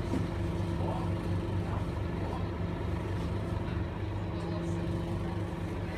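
Scania DC9 9.3-litre five-cylinder diesel engine of a Scania K280UB6 bus running at a steady, even pitch, heard from inside the passenger cabin as a low hum.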